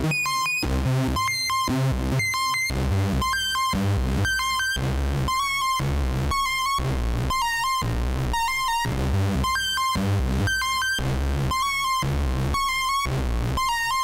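Elektron analog synthesizer playing a sequenced techno preset: short, bright repeated notes about twice a second over a bass line.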